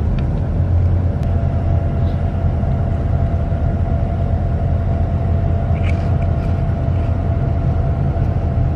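Steady low rumble of a moving car heard from inside, with a faint steady hum above it.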